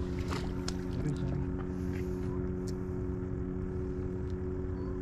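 Steady low engine hum holding several constant tones, with low rumble on the microphone and a few faint clicks.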